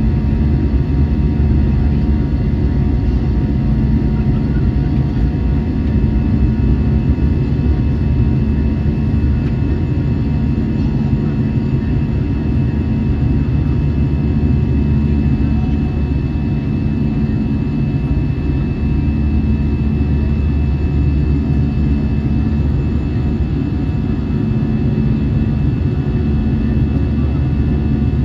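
Steady cabin noise of an Airbus A320-216 climbing after takeoff, heard inside the cabin at a window seat: the drone of its CFM56-5B turbofan engines and the rush of air past the fuselage. The sound is a constant low roar with a few faint steady tones above it.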